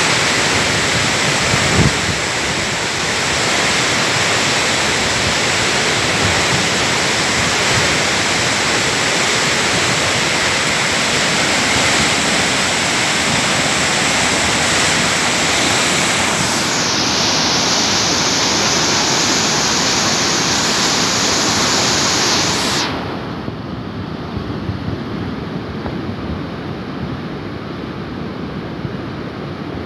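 Loud, steady rush of a river in flood, fast muddy water churning. About two-thirds of the way through the rush drops to a lower level.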